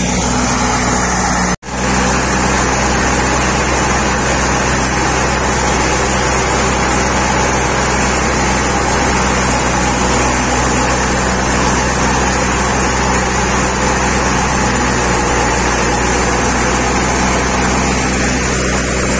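Wheat thresher running, a loud steady mechanical drone with a low hum under it. It cuts out for an instant about a second and a half in.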